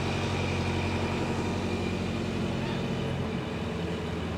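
Crane engine running steadily as it lowers a pile reinforcement cage into the bore: an even low engine hum with a faint steady high whine over it.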